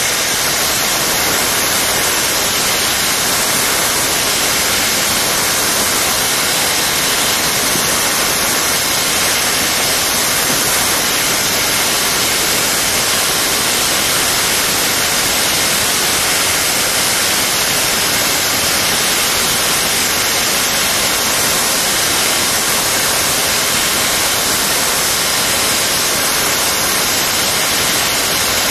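Loud, steady static hiss, like white noise, that cuts in abruptly just before and stays level with nothing else audible through it: noise on the recording's soundtrack rather than a sound of the scene.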